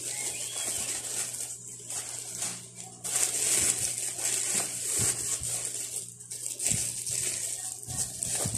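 Thin clear plastic bag crinkling and rustling in uneven bursts as a pair of sneakers is unwrapped by hand.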